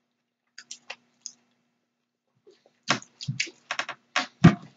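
A few faint clicks, then about three seconds in a quick run of sharp clicks and taps, ending in a heavier thump.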